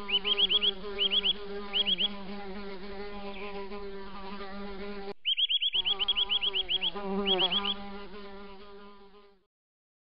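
A steady buzzing drone with repeated short, high chirps in quick runs of three or four. The drone breaks off for about half a second a little after the middle, and everything fades out near the end.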